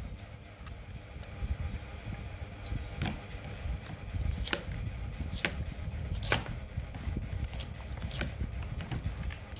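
Metal vegetable peeler scraping the tough rind off a pumpkin in short, irregular strokes, about nine over the span, over a low background rumble.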